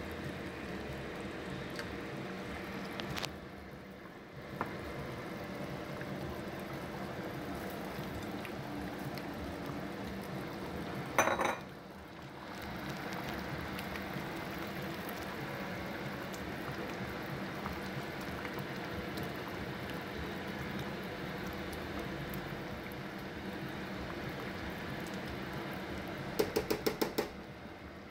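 A large pot of green chile beef stew boiling steadily. There is a sharp knock about eleven seconds in and a quick run of taps near the end.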